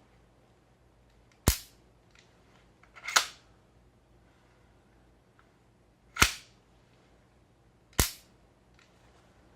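OTs-14 Groza gas blowback airsoft rifle on green gas firing four single shots at uneven intervals, each a sharp crack of the gas discharge and bolt cycling.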